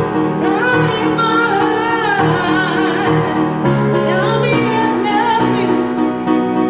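A woman singing two long, wavering phrases with sliding pitch over a slow karaoke backing track with sustained keyboard notes.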